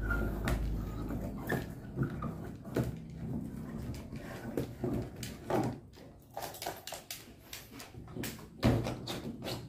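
Irregular light clicks and knocks of plastic being handled as a four-blade folding LED bulb is unscrewed from its ceiling socket, with one louder knock near the end.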